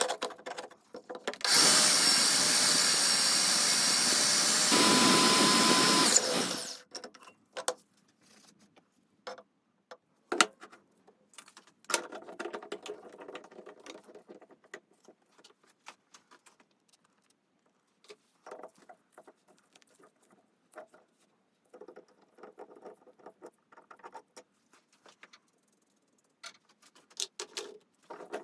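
A handheld power tool, drill-like, runs steadily for about five seconds, its pitch shifting near the end before it stops. It is followed by scattered clicks and short bouts of scraping and rubbing as parts are handled.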